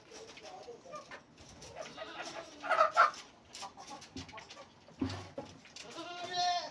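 Chickens clucking in short, scattered calls. Near the end a young goat gives one drawn-out bleat that falls in pitch.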